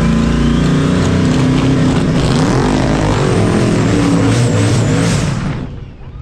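Drag race car engine running hard at full throttle, its pitch dipping once partway through, then fading away sharply near the end.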